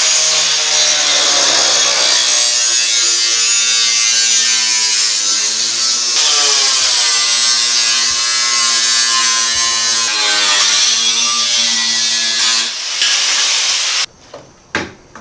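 Angle grinder cutting a section out of a Honda Civic's underbody sheet metal, its whine sagging and recovering as the wheel bites. It cuts off suddenly about 14 seconds in, followed by a few light knocks.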